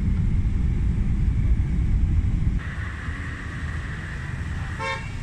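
A loud, low rumble, then from about halfway through, night street traffic with motorbikes passing. There is one short horn toot near the end.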